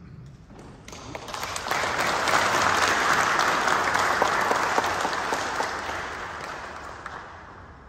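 Crowd applauding, swelling about a second in, holding through the middle and dying away near the end.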